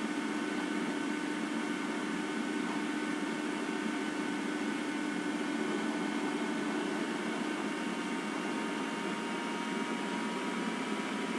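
Steady hiss with a low hum and a few faint steady tones, unchanging throughout, with no distinct clicks or knocks.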